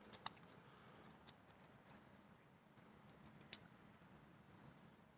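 A few small, sharp metal clicks from fishing forceps on a neck lanyard being handled, over near silence; the sharpest click comes about three and a half seconds in.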